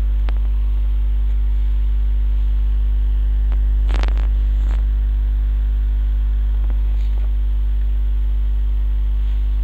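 Loud, steady electrical mains hum with a stack of overtones, unchanging throughout. A few faint brief scrapes or taps about four seconds in and again around seven seconds.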